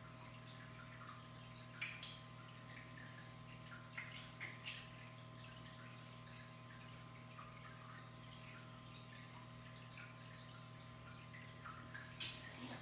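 Quiet room tone: a steady low hum with a few faint, light ticks about two seconds in, around four to five seconds, and near the end.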